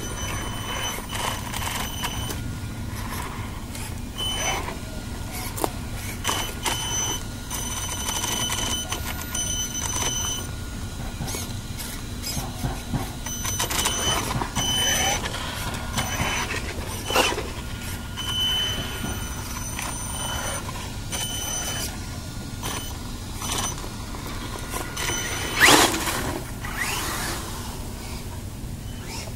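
Traxxas 1/16 Summit brushless electric RC truck driving in short bursts: a high-pitched motor and speed-controller whine that comes and goes with the throttle, with clicks and knocks as it runs over paving and grass. Near the end the whine rises sharply as the motor revs up.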